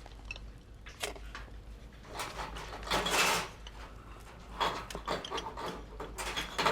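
Clicks, knocks and rattles of coffee-making gear being handled at a coffee machine, with a longer rushing, rasping noise about two to three and a half seconds in.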